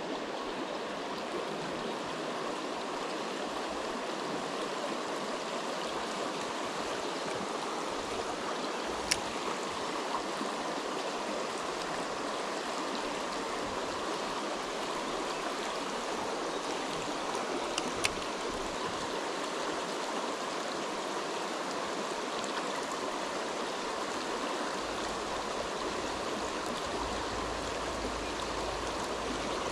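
Shallow, rocky mountain creek rushing steadily over stones and riffles. A brief sharp click sounds about a third of the way in and another about two-thirds in.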